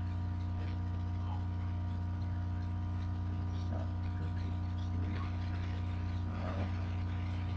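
Steady electrical mains hum and buzz from the recording microphone, made of several fixed tones, with a few faint, brief sounds in the background.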